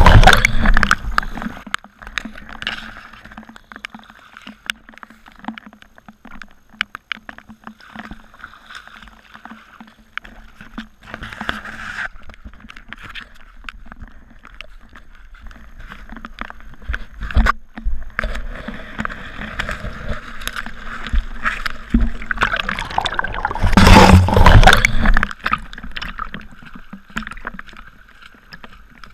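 Muddy stormwater runoff flowing and sloshing around a camera set at water level in the flow, with many small scattered ticks. Loud rushes of splashing at the very start and again about 24 seconds in, each lasting a second or two.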